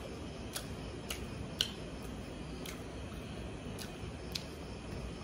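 Close-up eating sounds: a scattering of small sharp clicks and smacks, one or two a second, from chewing and from fingers mixing rice and pork curry on a metal plate.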